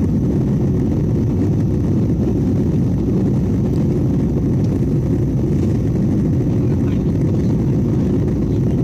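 Steady low rumble of an airliner's cabin in flight: jet engines and rushing airflow heard from inside the cabin during the descent.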